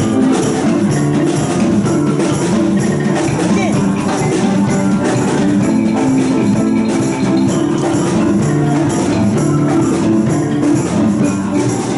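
Music with a steady beat and percussion.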